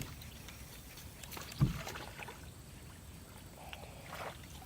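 A single dull thump on a small aluminium fishing boat, about a second and a half in, with faint scattered clicks and rustles around it.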